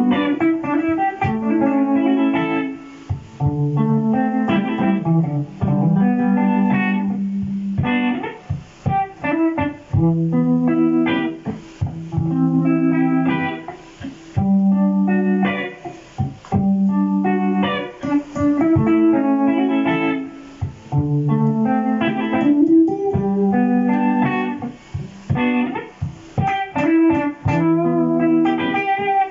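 Electric guitar played through a Boss GT-100 multi-effects unit, a looped bass-register phrase repeating under single-note jazz melody lines.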